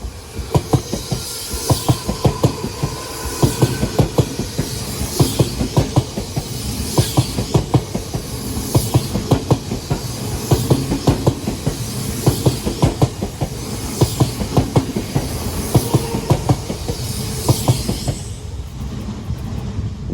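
Odakyu Line electric train passing, its wheels clicking over the rail joints in groups car after car, about every two seconds, over a steady rumble. It dies away near the end.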